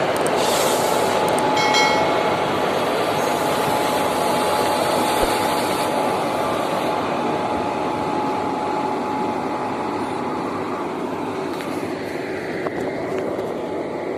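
Indian Railways electric locomotives rolling past close at low speed. The sound is a steady rumble of wheels and running gear under a constant whine, easing off slightly as the train pulls away.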